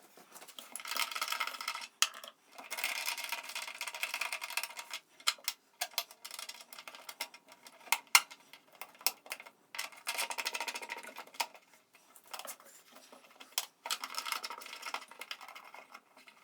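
Sharp metallic clicks and clinks with several one-to-two-second spells of rattling handling noise, from hands and tools working on a MIG welder's polarity connections.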